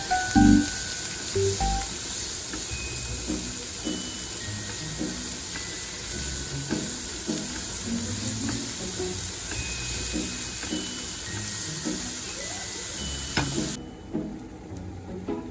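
Food sizzling in a hot frying pan, a steady hiss that cuts off suddenly near the end, over soft background music.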